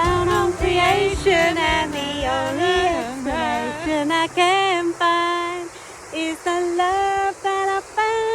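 Background music: a song with a female voice singing the melody, over a beat that drops out about halfway through.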